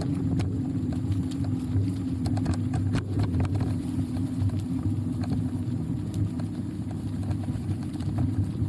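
Steady low rumble of a vehicle in motion, with a constant low hum and scattered small clicks and knocks.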